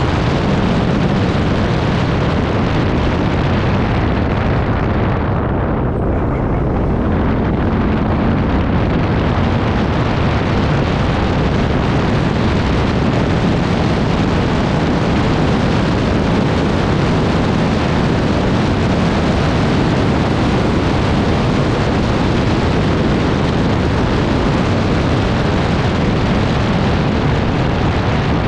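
ATV running under way, its engine noise buried in heavy, steady rumble and wind buffeting on the microphone; the hiss thins briefly about six seconds in.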